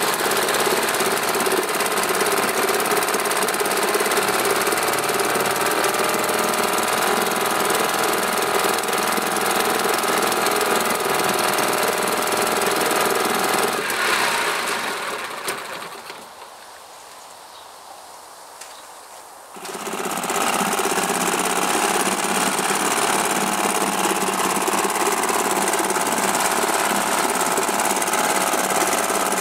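British Seagull single-cylinder two-stroke outboard motor running steadily in a test tub of water. About halfway its note drops and fades away, it stays quiet for a few seconds, then it is running again suddenly at full level.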